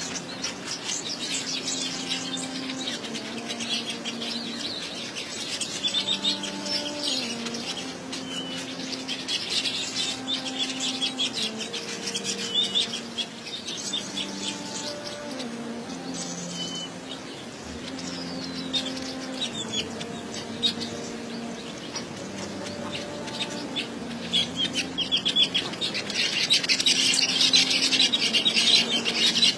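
Male weaver bird chattering at its woven grass nest: a rapid, buzzy chatter that goes on throughout and is loudest near the end. Under it runs a slow, low tune of held notes.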